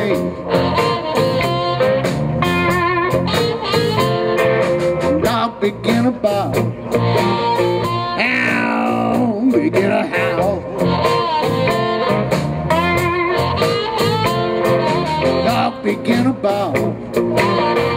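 Live electric blues band playing a slow blues: electric slide guitar lead with gliding notes over drums.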